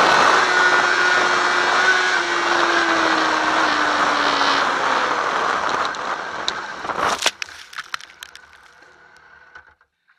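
Sport motorcycle's engine running with heavy wind noise, its pitch slowly falling as the bike slows. About seven seconds in, a quick run of hard knocks and scrapes as the bike crashes, the running noise stops suddenly, and a few fading clatters follow.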